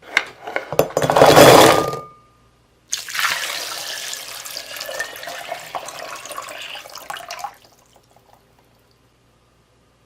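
Water pouring in two goes: a loud splashing pour of about two seconds, then, after a short pause, a longer and quieter pour of about four and a half seconds that stops suddenly.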